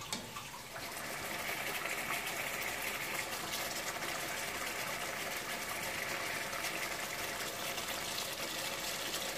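Chicken curry in tomato gravy simmering in a pan over a lowered gas flame: a steady hiss of cooking liquid. It picks up slightly about a second in.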